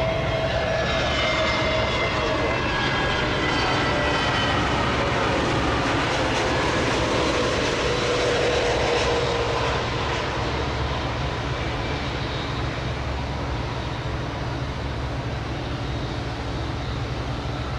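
Twin-engine Airbus A320-family airliner landing: steady turbofan jet noise with whining engine tones that slide down in pitch as it passes, lowest around nine seconds in, then the noise of the roll-out.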